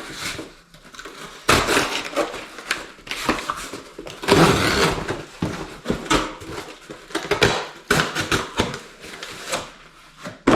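A piece of cardboard being cut and handled: an irregular run of scraping, crackling noises with a few sharp knocks.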